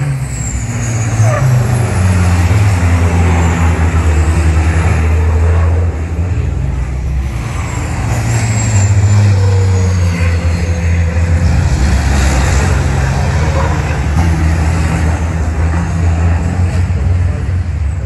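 Turbocharged diesel racing trucks running hard past the microphone, a deep engine note with a few faint high falling whistles. The sound swells about a second in, dips about six seconds in, and swells again around eight seconds in as trucks go by.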